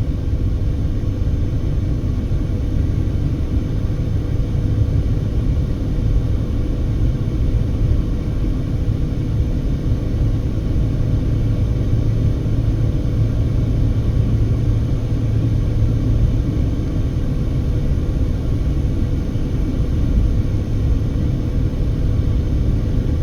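A moving car's road and engine noise heard from inside the cabin: a steady low rumble with a faint constant hum.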